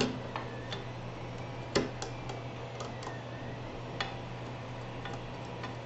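Scattered light clicks and ticks of small screws and metal parts being handled while fitting an Ender 3 3D printer's bed assembly together, with the sharpest click a little under two seconds in, over a steady low hum.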